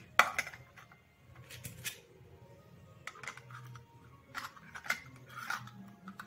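Irregular sharp clicks and light clacks as thin abrasive cut-off discs are handled and knocked against each other and the bench, the loudest click just after the start.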